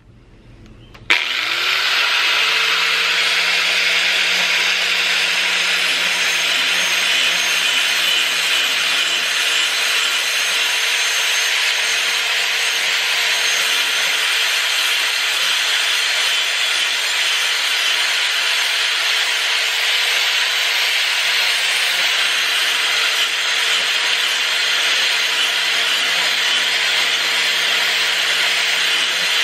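A handheld Drill Master angle grinder is switched on about a second in, its motor spinning quickly up to speed. It then grinds steadily against the steel edge of a rusty lawn mower blade, sharpening the blade's outer tip.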